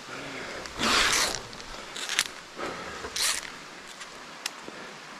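Three short rasping swishes, the loudest about a second in, over a steady hiss of rain.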